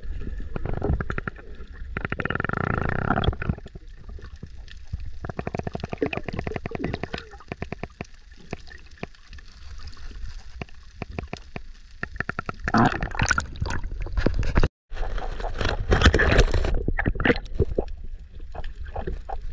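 Underwater sound picked up by a submerged action camera: gurgling, bubbling water with many small clicks and crackles that come in bursts.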